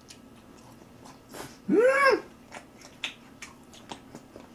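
A man eating: a short breathy sound, then a single voiced 'ooh'-like vocalisation that rises and falls in pitch about two seconds in, followed by soft clicks of chewing and lip smacks.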